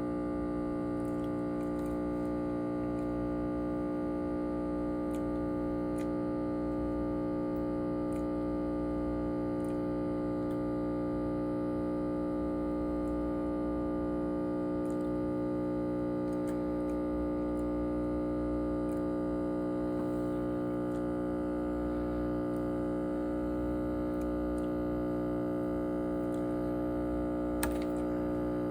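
Background music: one steady, sustained synth chord held unchanged throughout, with a few faint ticks and a small click near the end.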